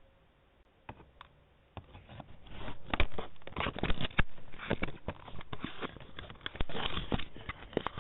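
Almost silent at first. From about two seconds in comes a steady run of irregular small clicks, scrapes and rustles, picked up by a doorbell camera's low-fidelity microphone.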